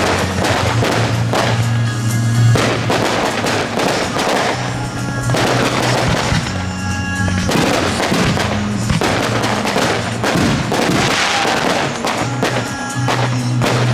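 Fireworks going off in rapid succession, many bangs and crackles, over loud music with steady held bass notes.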